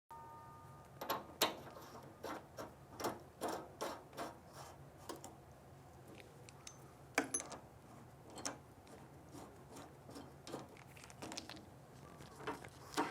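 Irregular light clicks, taps and knocks of hose fittings being handled and connected, with two sharper knocks, one about a second and a half in and one about seven seconds in, over a faint steady low hum.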